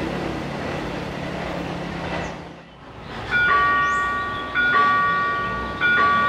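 Steady outdoor background noise, then from about three seconds in a railway level-crossing warning bell: an electronic chime of several high tones sounding together, repeating about every 1.2 seconds. It is the signal that a train is approaching the crossing.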